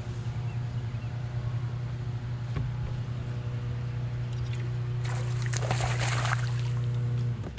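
Bass boat's electric trolling motor humming steadily, cutting off suddenly near the end. A burst of splashing about five seconds in as a hooked spotted bass thrashes at the surface.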